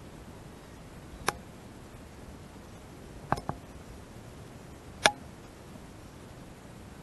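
Four sharp knocks: one about a second in, a quick pair near the middle, and a louder one with a short ring a little after five seconds, over a low steady background noise.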